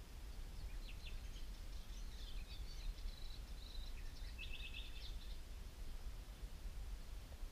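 Songbirds chirping, with a short rapid trill about four and a half seconds in, over a steady low rumble.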